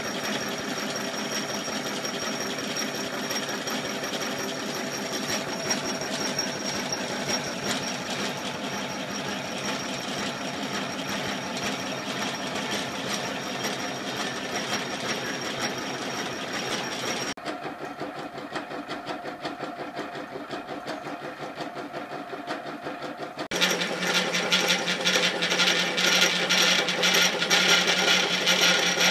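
Woodfast wood lathe running, spinning a pepper grinder blank while a drill bit in the tailstock chuck bores into its end. The steady machine sound drops abruptly about 17 seconds in, then turns louder and rougher about six seconds later.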